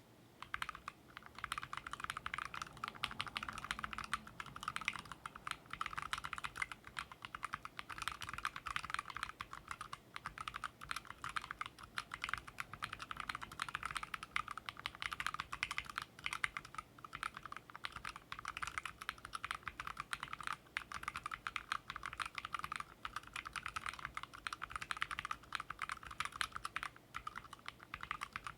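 Continuous typing on a Drop OLKB Planck 40% ortholinear mechanical keyboard with Gateron Baby Kangaroo tactile switches and MT3 keycaps: a steady rapid patter of key clicks that starts about half a second in.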